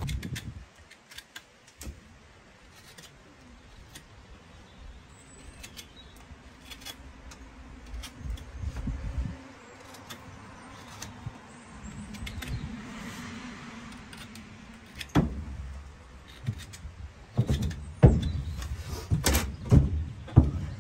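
Hoof knife paring the overgrown sole of a donkey's hoof: scattered short scrapes and clicks of the blade. Louder knocks and clatter come in the last few seconds.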